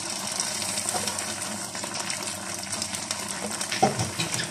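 Chili sauce sizzling steadily in a pan around giant freshwater prawns as they cook, with fine crackling. A short knock about four seconds in.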